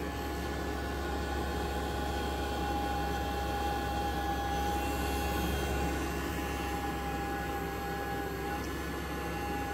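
SEAFLO 4-inch in-line 12 V bilge air blower running steadily at about half speed on a DC speed controller: an even rush of air with a constant whine.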